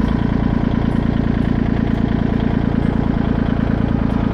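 Kubota tractor's diesel engine running steadily at idle.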